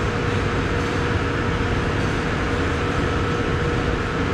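Steady drone of running machinery with a constant hum, unchanging throughout.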